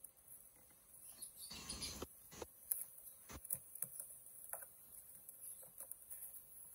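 Cardboard box handled and opened by hand: a short rustling scrape about two seconds in, then scattered light taps and clicks as the flaps are pried up and folded back.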